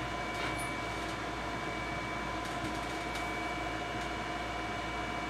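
Steady machine hum with a few thin, unchanging whining tones, like a fan or electrical equipment running, and a couple of faint ticks.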